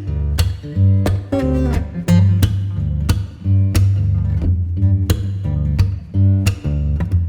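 Background music: acoustic guitar picking and strumming over a steady bass line.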